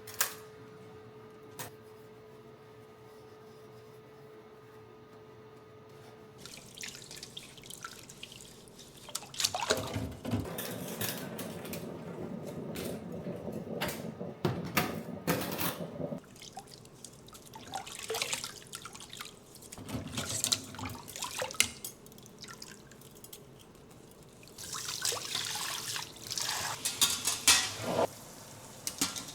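Water from a kitchen tap running and splashing in a sink in several spells, as things are rinsed under it, with a few knocks. Before the water starts there is only a faint steady hum.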